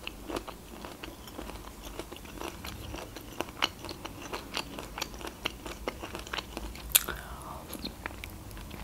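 Close-up mouth sounds of chewing soft food with the lips closed: a steady run of small wet clicks and smacks, with one sharper click about seven seconds in.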